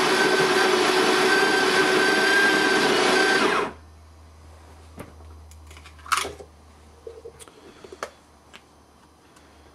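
Bodum Bistro electric burr grinder grinding coffee beans on its fine setting: a steady motor drone with a high tone riding on it, which cuts off abruptly about three and a half seconds in. A few light clicks and knocks follow.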